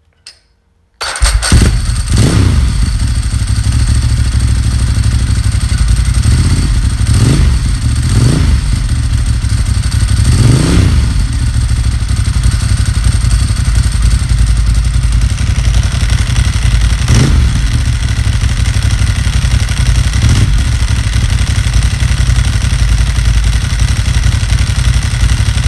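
Ducati Monster S4R's Desmoquadro V-twin, breathing through a Termignoni exhaust with no catalytic converter, catches about a second in and runs loud. Several short throttle blips rise and fall over the idle, along with the rattle of its open dry clutch.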